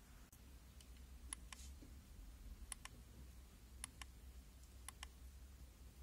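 Near silence with a low hum and faint, sharp small clicks, mostly in close pairs about a second apart.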